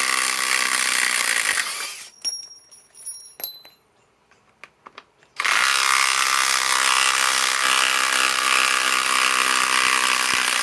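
RIDGID R8721B cordless right-angle impact wrench hammering on a lag screw in two long runs, stopping for about three and a half seconds in between with a few light clicks and knocks.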